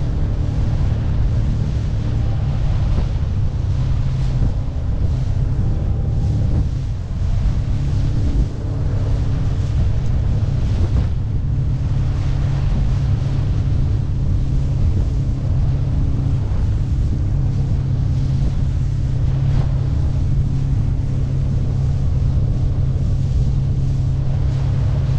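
Suzuki 50 hp four-stroke outboard running at a steady cruising drone as the small boat runs through chop, with water rushing along the hull and wind buffeting the microphone.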